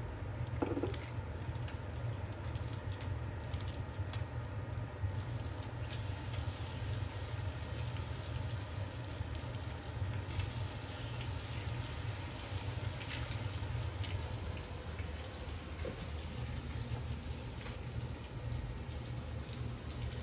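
Oil sizzling in a frying pan, the hiss growing much louder about five seconds in as seasoned tilapia fillets are laid in to fry, over a steady low hum.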